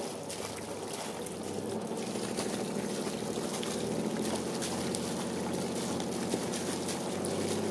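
Seawater splashing and trickling where a taut rope line enters the sea at a sailboat's bow, over a steady low mechanical hum that grows slightly louder about two seconds in.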